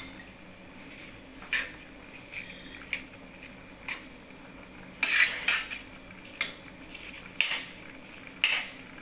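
Spinach leaves being pressed down into a stainless steel pot of simmering coconut milk, with a scattering of short clinks and scrapes against the pot, the loudest about five seconds in.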